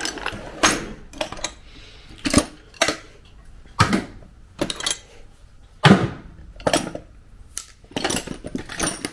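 Hand tools clinking and clanking as they are picked up and set down: a dozen or so separate metallic knocks at an uneven pace.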